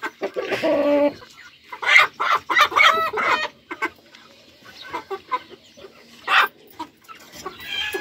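Chickens clucking and squawking: a string of loud calls in the first three seconds or so, then quieter clucks and one more sharp call at about six and a half seconds.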